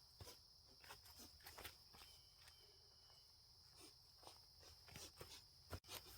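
Near silence: a faint steady high-pitched hiss with a few soft, scattered clicks and footsteps.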